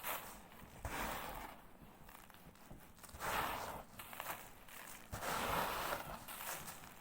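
Sand crumbling and sliding on cardboard in gritty swishes, each lasting about a second: one about a second in, one just past three seconds, and a longer one from about five to six seconds, with faint grit in between.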